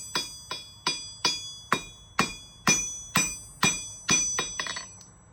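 Hand hammer forging on a 66 lb Vevor London pattern anvil: a steady rhythm of about two blows a second, each ringing. Near the end come a few quick lighter taps, and then the hammering stops.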